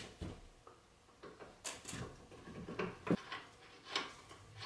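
Light, irregular metallic clicks and knocks as a BC Racing coilover and its mounting hardware are handled and fitted into a car's front suspension.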